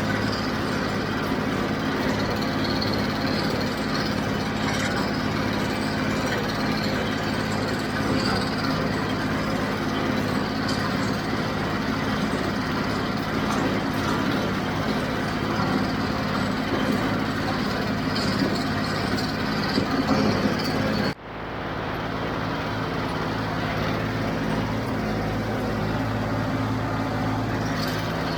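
John Deere 5055 tractor's diesel engine running steadily with a John Deere 348 square baler working behind it. The sound cuts out sharply for a moment about two-thirds of the way through, then carries on the same.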